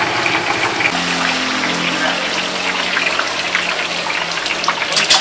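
Hot oil sizzling and crackling as battered oyster fritters and other seafood deep-fry in a wok, a dense, steady spatter of tiny pops.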